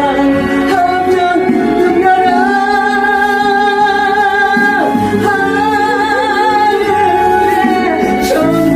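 A solo singer singing a gospel song over instrumental accompaniment, holding long notes with vibrato.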